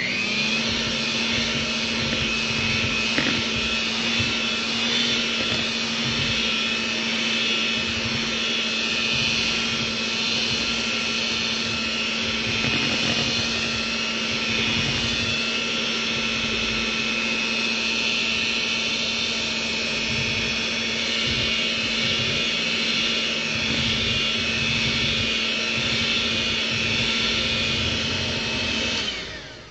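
Electric hand mixer running steadily at one speed, its steel beaters whirring through thick jalebi batter in a metal bowl. The motor switches off near the end.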